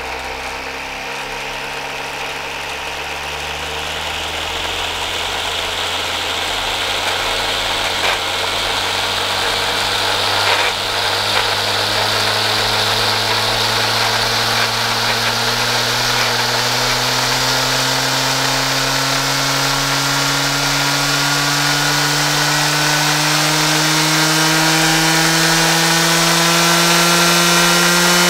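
Black & Decker string trimmer's universal series-wound motor spinning with its nylon line, its whine rising steadily in pitch and getting louder as the supply voltage is turned up toward its 230 V rating and the speed climbs from about 3,700 to 10,000 rpm. A couple of brief clicks come midway.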